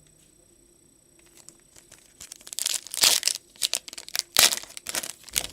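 Foil wrapper of a Donruss Optic football card pack being torn open and crinkled. It comes as a run of sharp rips and rustles from about two seconds in, with the loudest tears around three seconds and again past four seconds.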